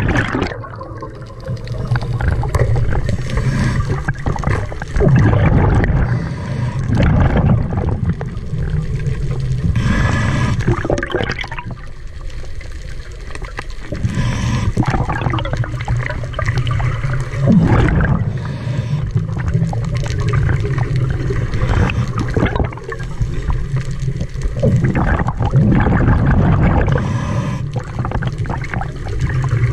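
A scuba diver's regulator breathing underwater: gurgling bubble bursts from the exhalations, coming and going in slow cycles every few seconds.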